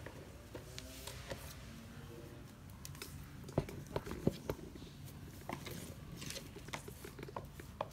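Scattered light clicks and taps of kittens' paws and claws on a tiled floor as they scamper and play, with a few sharper taps around the middle.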